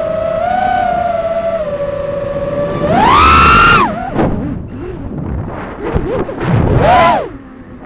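6-inch FPV quadcopter's motors and propellers whining at a steady pitch, then surging sharply higher about three seconds in, followed by quick up-and-down swoops in pitch as the throttle changes.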